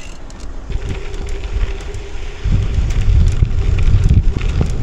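Wind noise on the camera microphone and the rolling noise of a bicycle's tyres, with a faint steady hum through the middle; the low rumble gets much louder about halfway through as the bike rides onto a rough path.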